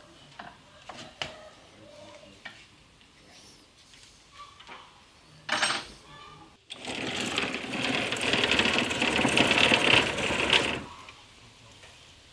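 A few light clicks and knocks, then a loud rapid rattling from a power tool that runs for about four seconds and stops abruptly.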